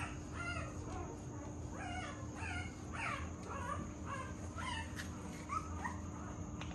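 Young Rottweiler puppies whimpering and squealing: a quick run of short, high, rising-and-falling cries, several a second, thinning out about five and a half seconds in.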